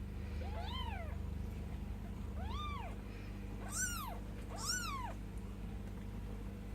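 Ten-day-old Bengal kittens mewing: four short, high-pitched mews, each rising and falling, with the last two higher.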